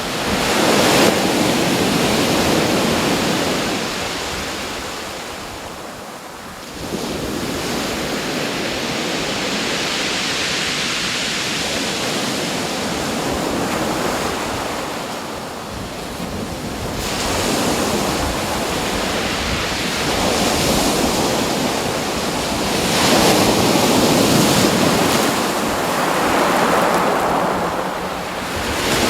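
Ocean surf: waves breaking and washing in, the rushing noise swelling and easing every several seconds, with a sudden rise about seven seconds in.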